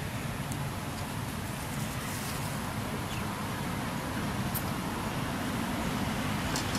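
Steady low outdoor rumble of background noise, with a few faint high ticks scattered through it.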